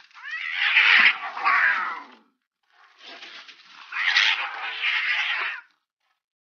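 Two domestic cats fighting, screeching and yowling at each other in two long stretches with a brief break about two seconds in, stopping suddenly near the end.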